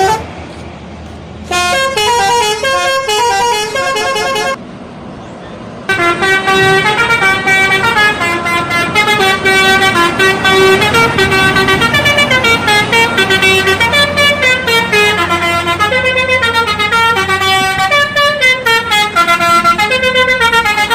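Indonesian bus telolet horn playing melodic runs of stepped, trumpet-like notes: a short tune starting about a second and a half in, a brief pause, then a long continuous run of changing notes over a low steady hum.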